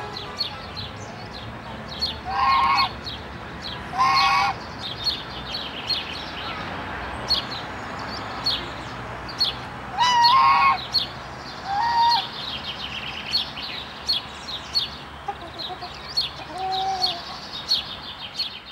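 Geese and ducks calling: about five short, loud calls spread through, the loudest about ten seconds in, over constant songbird chirping.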